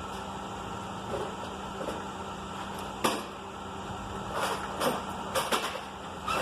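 Hand tools clicking and knocking against the metal parts of a steering assist motor being taken apart: one sharp knock about three seconds in, then a quick run of clinks near the end, over a steady background hum.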